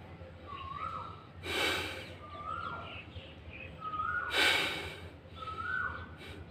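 An Asian koel calling over and over, a short rising two-part call about every second and a half. Twice, about a second and a half and four and a half seconds in, a person breathes out hard, louder than the bird.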